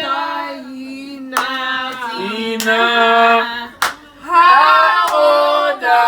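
A group of people singing with long drawn-out notes, with a few hand claps in between.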